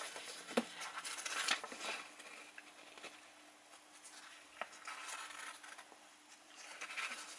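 Faint handling noises: scattered light clicks and rustling, over a faint steady hum.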